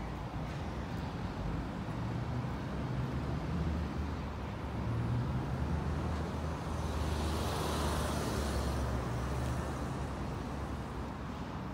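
Road traffic noise: a steady low rumble, with a vehicle passing by between about six and nine seconds in.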